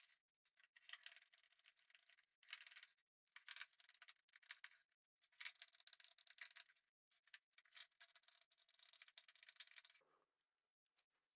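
Faint, scattered rattling clicks and scrapes of a screwdriver backing out small screws from a plastic fascia panel, with short bursts every second or so.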